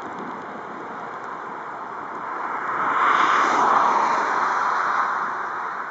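Rear-mounted jet engines of a twin-jet on the runway: a steady rush of jet noise that swells loud about three seconds in and then slowly eases off.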